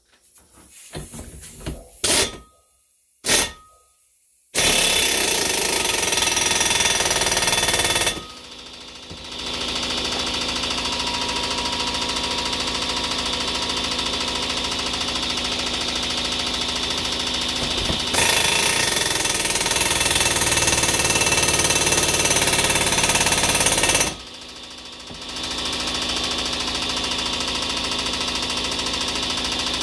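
Air impact wrench hammering steadily as it drives the drawbolt of a Lisle exhaust pipe expander, stretching the end of an exhaust pipe. It starts about four and a half seconds in after two sharp knocks, and lets off briefly twice.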